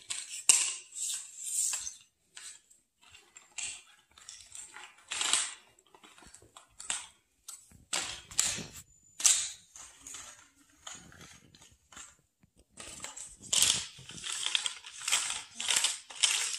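Large cardboard floor-puzzle pieces being slid, swept and dropped on a hardwood floor as they are sorted by hand: irregular scraping and light clacking, busiest near the end.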